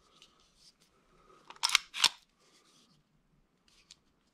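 Two sharp metallic clicks a third of a second apart, from the controls of a CZ 97B .45 ACP pistol being worked by hand, with light handling rustle and a faint click near the end.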